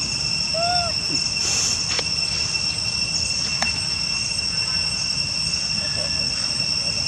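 Insects trilling steadily at a high, constant pitch over a low outdoor rumble, with one short rising-and-falling call just under a second in and a few faint clicks.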